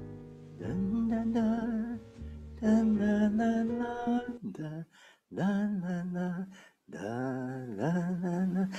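Gentle music: a voice singing or humming long, wavering notes over a soft, steady accompaniment, in phrases with short breaks between them.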